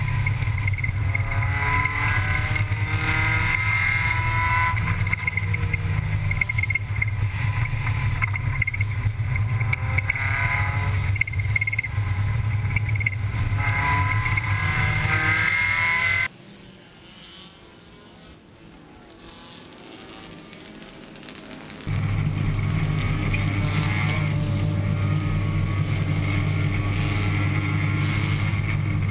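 Compact touring race car's engine heard from inside the cockpit, its pitch repeatedly rising and falling as the driver accelerates and lifts. About halfway through it cuts off suddenly to a much quieter stretch. Then another car's engine, also heard from inside, comes in loud and steady with a deep hum.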